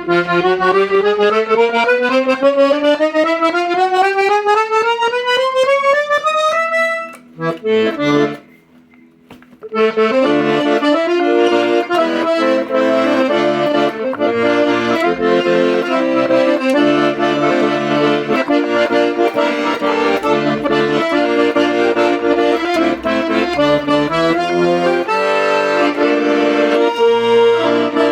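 Hohner Concerto III piano accordion being played: a run of notes climbing steadily in pitch for about seven seconds, a short pause, then chords with a melody over them.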